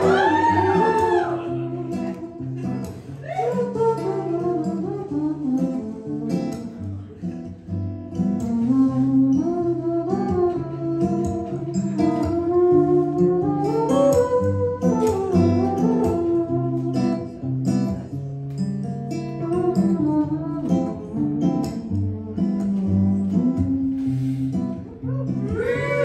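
Acoustic guitar playing an instrumental break in the song, a picked melody over chords.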